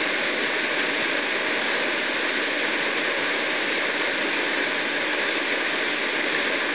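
Waterfall, about 10 m high, pouring steadily, heard close up as an even rushing.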